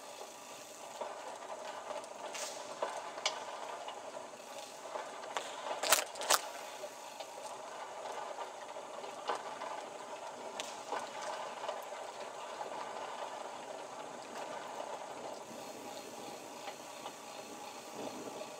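Steady rattling, clicking clatter, with two sharp, loud clicks about six seconds in.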